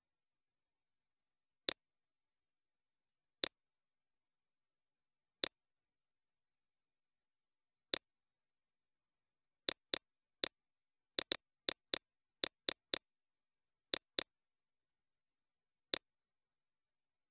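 Computer mouse clicking: short sharp clicks, some doubled, first a couple of seconds apart, then a quick run of about a dozen in the middle, with dead silence in between.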